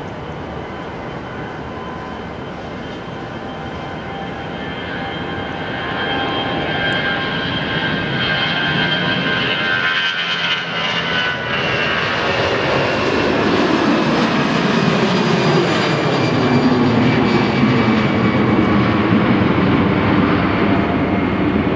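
Airbus A320-211's twin CFM56 turbofans at takeoff thrust, growing louder as the jet rolls past and lifts off. The engine whine drops in pitch as it passes, and a deeper rumble builds as it climbs away.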